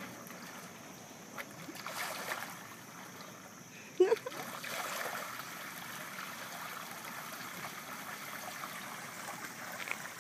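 Water running out of a sump pump's outlet pipe in a steady trickling stream. About four seconds in there is a single brief sharp noise, the loudest moment.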